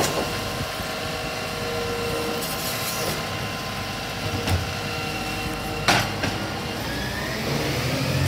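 Automated side-loader garbage truck's bin-lifting arm working over its running diesel engine, with a steady hydraulic whine and several sharp metal clunks as the wheelie bin is emptied and set back down; the loudest clunks come at the start and about six seconds in. Near the end the engine note rises as the truck pulls away.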